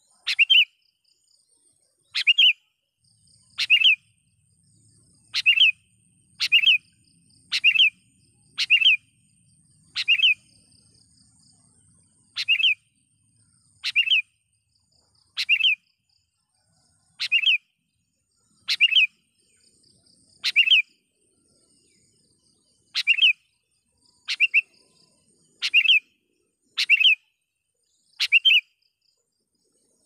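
Sooty-headed bulbul (kutilang) repeating a short, bright call phrase, about one every second and a half. It is a loud, persistent calling used to challenge rivals and lure wild bulbuls.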